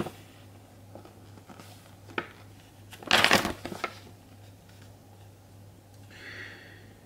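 A large folded paper rules sheet rustling as it is handled and turned over, with one louder crinkle about three seconds in.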